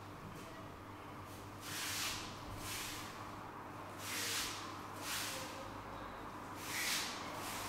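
Wooden practice sword (bokken) swung through the air in cuts: four short swishes a second or two apart.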